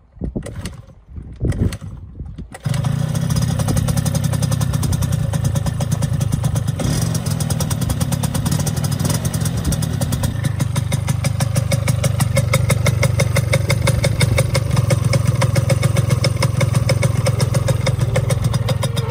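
1994 Piaggio Zip scooter's air-cooled two-stroke engine, fitted with a 70cc cylinder, started for the first time. It sputters irregularly for a couple of seconds, catches about two and a half seconds in, and then runs steadily at idle.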